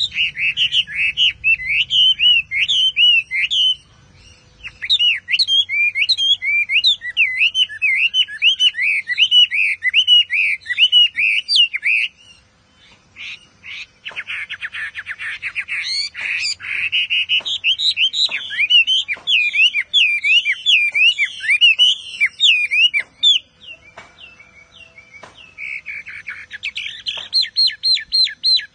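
Chinese hwamei (Garrulax canorus) singing: loud, rapid, varied phrases of swooping whistled notes, broken by short pauses about 4 s, 12 s and 24 s in. Near the end it delivers a fast run of repeated notes.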